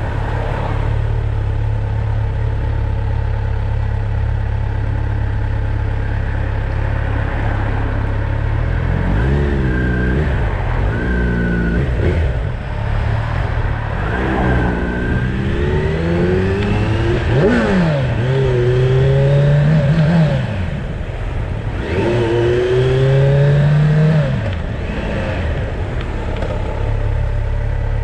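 Motorcycle engine ticking over steadily, then revving up through a series of rising pitches, each cut off by a sudden drop, as it pulls away through the gears. It settles back to a steady low run near the end.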